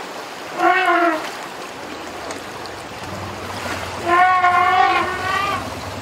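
Asian elephants trumpeting in a river: a short trumpet about half a second in and a longer one about four seconds in, over the rush of running water.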